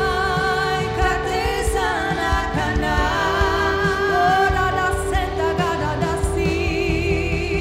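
Worship song: a voice singing long, wavering held notes over a steady sustained note and bass.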